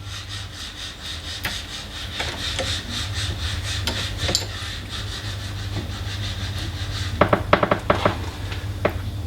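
Rubbing and scraping as the smart lock's data cable and inside mounting plate are worked through the hole in the door, with a quick run of light clicks and knocks about seven seconds in.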